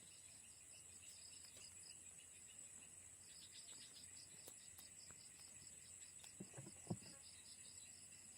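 Insects, crickets by the sound, chirping: a steady high drone with a rapidly pulsing chirp over it, faint throughout. One short, soft knock about seven seconds in.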